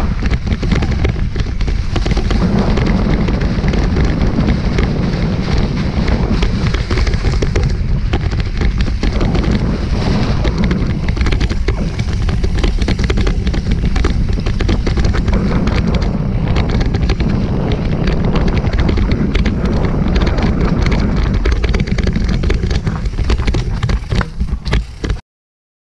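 Mountain bike riding fast down a rocky, leaf-covered trail, heard from a helmet camera: wind buffeting the microphone over a dense clatter of knocks from the tyres and bike on rocks and roots. The sound cuts out abruptly for about half a second near the end.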